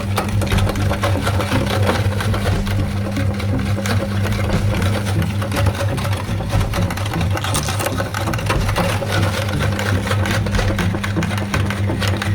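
Electric meat grinder running with a steady low hum, with scattered small clicks and crackles as candy is ground.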